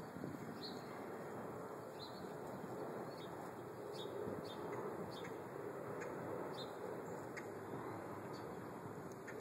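A small bird chirping, short high notes about once a second, over a steady background hiss.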